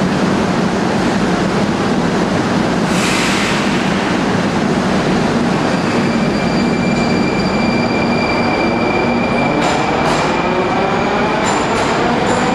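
Moscow metro train running at the platform with a steady, loud rumble. There is a short hiss about three seconds in, then a high steady squeal from about six seconds, and near the end a whine that rises in pitch as the train gathers speed.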